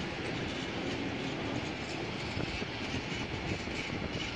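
Freight train of tank wagons rolling past at close range, a steady noise of wheels running on the rails.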